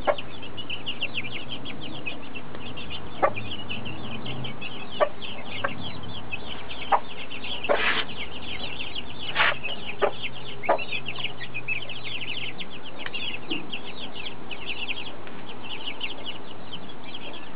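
A brood of chicks peeping constantly in rapid, high, short cheeps, with the mother hen clucking low among them until about two-thirds of the way through. A few sharp taps are scattered through.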